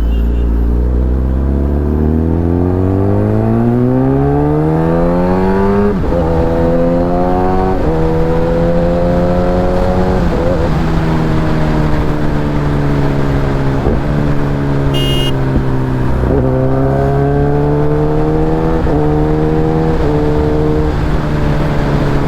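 Kawasaki Ninja ZX-10R's inline-four engine under way, heard onboard over steady wind rush. It climbs through the revs for about six seconds, shifts up, then holds a cruising note that dips and climbs again several times with gear and throttle changes. A short high-pitched beep sounds about fifteen seconds in.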